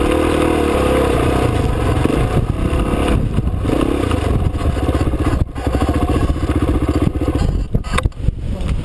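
Off-road motorcycle engine pulling hard up a rough track, then easing off about three seconds in and running at low revs. Another trail bike's engine runs close by, and a few sharp knocks and rattles come near the end.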